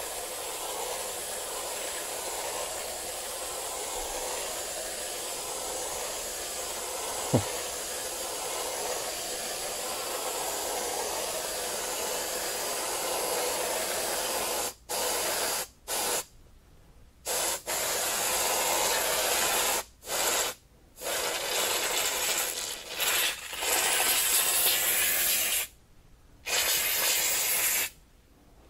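A large 15 oz Reddi-wip aerosol whipped cream can spraying cream out through its nozzle with a steady hiss of nitrous oxide propellant, held open for about fifteen seconds, then let off and on in a string of short bursts as the can is emptied. One sharp click sounds about seven seconds in.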